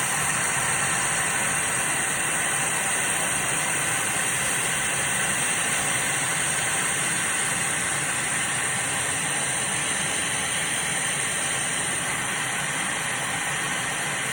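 CO2 laser cutting machine running: a steady airy hiss with a thin, constant high whine.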